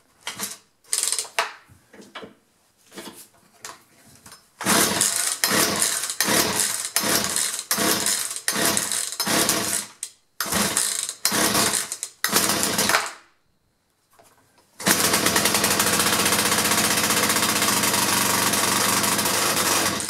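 Poulan Pro 40cc two-stroke chainsaw engine being pull-started on choke: a quick string of pulls on the recoil starter, then after a short pause it catches and runs steadily for about five seconds before cutting out at the end. This is the saw's fault of starting and then quitting, which the repairer takes for a fuel problem.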